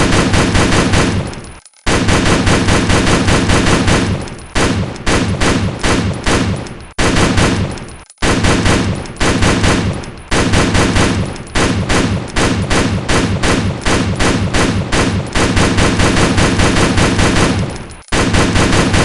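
AR-style semi-automatic rifle firing rapid strings of shots, with a few brief pauses between strings.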